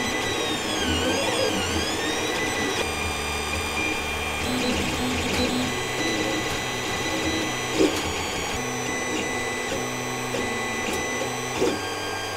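Creality CR10S 3D printer printing: its stepper motors whine in tones that shift between pitches and glide up and down as the print head moves, over a steady hiss. Two short knocks, one past the middle and one near the end.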